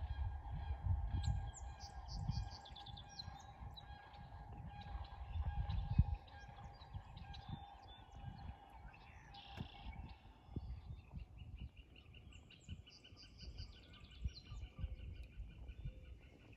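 Songbirds chirping and singing around the river, with a fast, rapidly repeated trill from about two-thirds of the way in. Under the birds there is a steady hum until about ten seconds in, and low buffeting on the microphone during the first six seconds.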